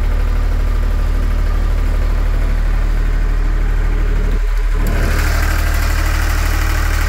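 Mahindra three-cylinder diesel engine of a 15 kW, 1500 rpm generator set running steadily with a low, even drone. About five seconds in the sound turns brighter and harsher, as the canopy door is open on the engine and alternator.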